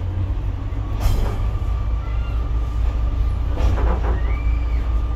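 Pacer diesel railbus on the move, heard from its cab: a steady low rumble of engine and running gear, with two sharp knocks and a thin steady high whine setting in about a second in.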